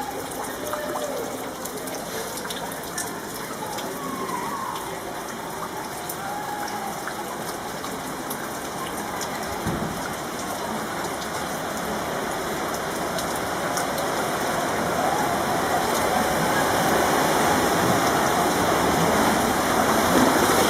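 Rain falling steadily, growing louder and heavier through the second half. There is a single low thump about ten seconds in.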